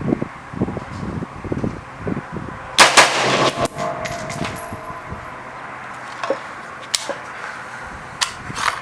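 Two shots from an AR-style rifle about a fifth of a second apart, just under three seconds in: a doubled shot, or bump fire, from a trigger made extremely light by a JP trigger spring set. A few fainter sharp cracks follow later.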